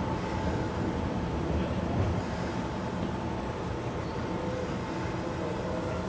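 Keisei 3000-series electric train standing at the platform, its onboard equipment giving a steady hum with a thin continuous whine.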